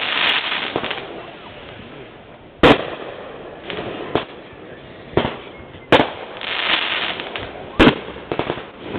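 Aerial fireworks bursting: three loud bangs spaced a few seconds apart, with smaller pops and a crackling hiss in between.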